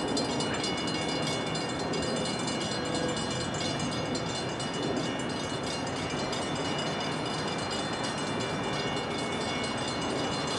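A train heard off-picture: a steady rumble with a set of high, steady metallic ringing tones above it that set in suddenly at the start.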